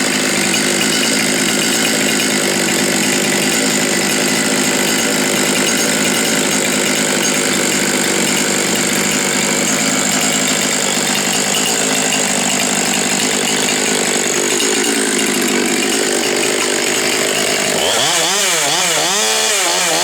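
Stihl MS 200T top-handle chainsaw's small two-stroke engine running steadily; about eighteen seconds in, its sound starts to swing up and down in pitch over and over.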